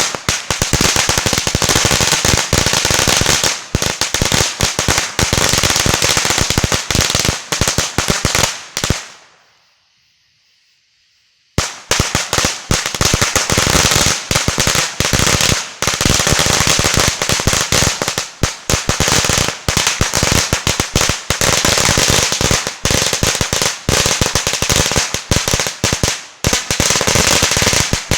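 A long string of firecrackers going off in a rapid, continuous crackle of loud bangs. About nine seconds in the crackling dies away to near silence, then starts again abruptly at full strength two and a half seconds later and carries on.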